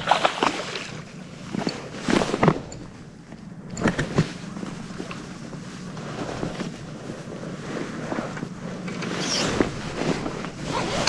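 A large olive flounder thrashing at the water's surface while being worked into a landing net, with several sharp splashes in the first four seconds, then steadier water sloshing and wind on the microphone.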